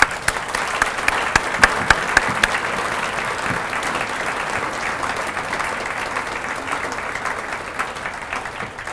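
Audience applauding, dense steady clapping that fades slightly toward the end. A few sharper claps stand out close to the microphone in the first couple of seconds.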